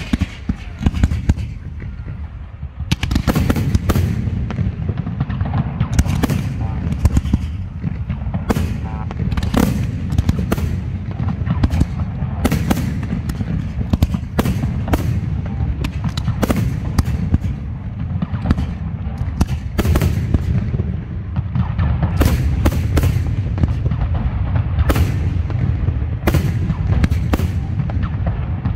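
Professional fireworks display: launches and shell bursts in quick succession, dozens of sharp bangs over a continuous low rumble. The barrage grows denser and louder about three seconds in.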